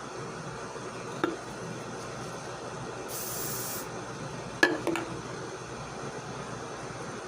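A short burst from an aerosol hair spray can, under a second long, about halfway through. A sharp click comes about a second in, and two more sharp knocks come just after the spray, the loudest sounds here.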